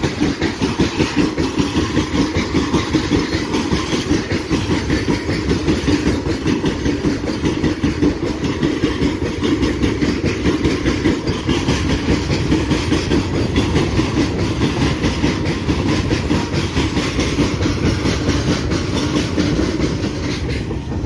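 Fully loaded freight train's covered open wagons rolling past close by: a steady heavy rumble with the rapid, rhythmic clickety-clack of wheels over the rail joints, easing off near the end.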